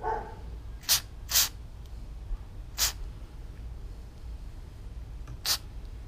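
Flex Seal liquid rubber aerosol can spraying in four short bursts: two close together about a second in, one near the middle and one near the end.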